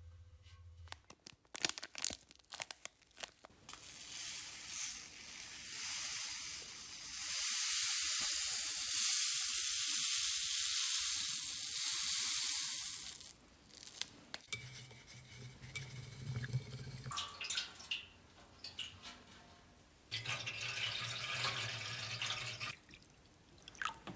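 Restoration workshop sounds: scattered clicks and knocks, then a steady hiss lasting about six seconds. A steady low hum with noise on top follows twice, each time for two or three seconds.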